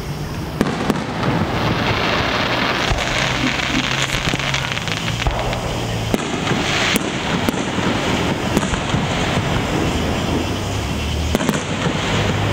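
Aerial fireworks display: repeated sharp bangs of shells bursting, over continuous crackling.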